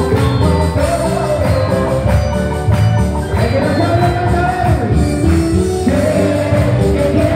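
Live band music played loud through a PA: an electronic keyboard carrying the melody over bass and steady percussion, with a singer on microphone.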